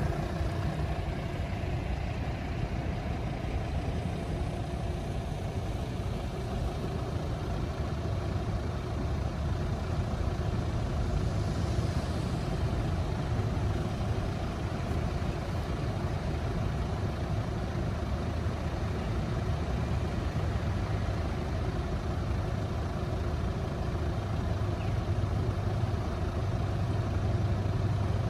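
Cars idling close by while stopped at a red light, a steady low engine hum that grows a little louder near the end.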